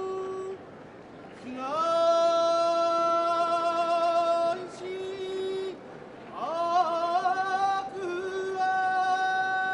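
A sumo yobidashi singing the yobiage, the drawn-out call of the next two wrestlers' names: one voice in several long held notes, each phrase sliding up into the note and wavering, with short breaks between phrases.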